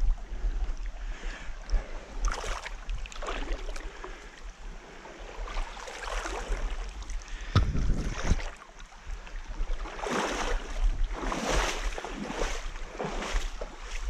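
Water splashing and sloshing in irregular surges, like legs wading through a shallow river, with the splashes coming closer together in the last few seconds.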